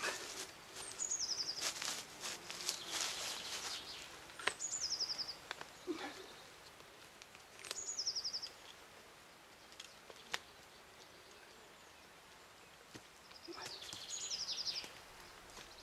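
A songbird repeating a short, fast trill that steps down in pitch, about every three seconds. Between the songs come close rustling and crackling from a deer hide being pulled and worked off the carcass, loudest in the first few seconds and again near the end.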